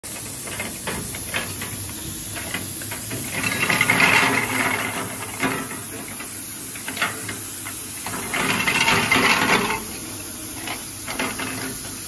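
Inclined cleated belt elevator lifting empty plastic flat bottles out of a stainless steel hopper: steady machine running noise with a hiss, and plastic bottles clattering against each other and the steel as they tumble. The clatter grows louder twice, about a third of the way in and again about three quarters of the way in.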